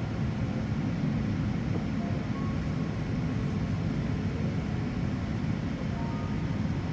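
Steady low noise inside an airliner cabin in flight: engine and airflow noise heard from a window seat, unchanging throughout.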